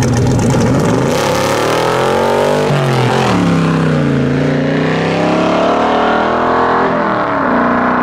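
Straight-piped big-block 427 V8 in a C2 Corvette launching hard from a stop with wheelspin, its exhaust note rising through the revs. There are two gear changes, the pitch dropping about three seconds in and again about seven seconds in before climbing once more.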